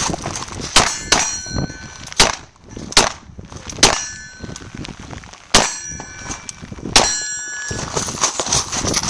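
Glock 34 9mm pistol firing a string of about seven shots at uneven intervals, several of them followed by the ringing clang of a steel plate target being hit.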